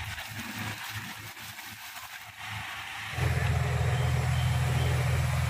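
Water poured from a plastic bucket splashing into a large aluminium pot of raw chicken pieces, then hands sloshing the chicken in the water. About three seconds in, a steady low engine drone starts and becomes the loudest sound.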